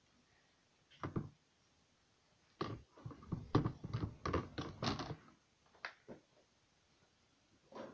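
A cat's paws scrambling and thumping on a vinyl kitchen floor as it jumps up and runs off: a single knock, then a quick irregular run of knocks and thumps, then a few scattered taps.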